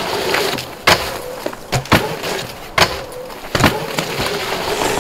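Mountain bike ridden fast down a dirt bike-park trail: a steady rush of tyres and wind with a faint hum, broken by sharp knocks and clatters from the bike's chain and suspension over bumps, about one a second.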